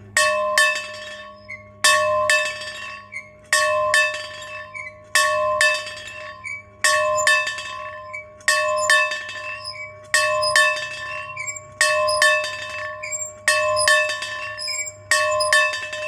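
A bell rung over and over in a steady rhythm: pairs of strikes, a pair about every 1.7 seconds, each strike ringing on until the next.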